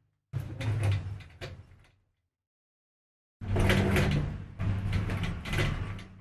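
Industrial sewing machine stitching in two runs: a short burst of about a second and a half, then a longer run of nearly three seconds, each stopping abruptly.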